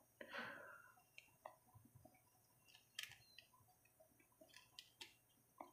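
Near silence, with a few faint, scattered clicks and taps from fingers tearing a cheese slice and placing the pieces on a pizza in a frying pan.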